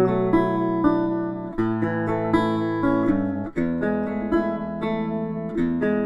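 Instrumental background music, with the chord changing about every two seconds.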